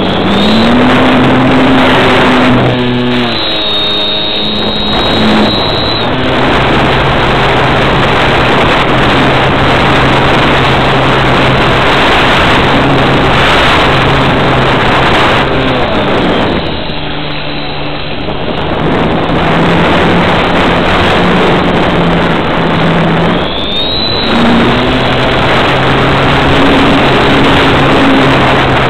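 Model airplane's motor and propeller running, heard from the onboard camera under the plane with heavy wind rush over its microphone. The engine note steps up and down with the throttle and eases off twice: once a few seconds in and again just past the middle.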